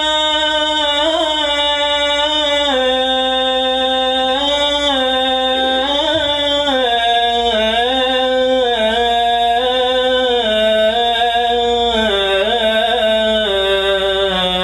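A single unaccompanied voice chanting a slow melody in long, ornamented held notes, its pitch stepping gradually lower toward the end.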